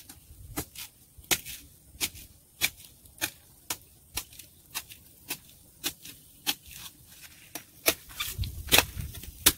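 Kitchen knife chopping on a cutting board: a run of sharp chops at about two a second, slightly uneven in pace.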